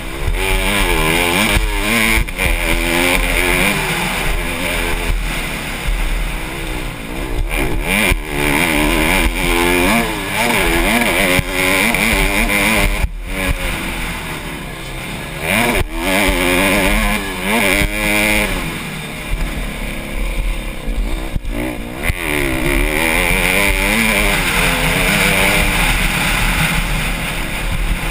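Honda CRF150R's four-stroke single-cylinder engine being ridden hard, its note rising and falling over and over through the gears. There are a few brief drops where the throttle is shut off.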